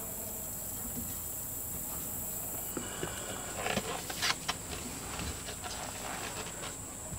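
A long PVC pipe being lifted and moved into place, giving a few light knocks and scrapes about four seconds in, over a steady high-pitched insect drone.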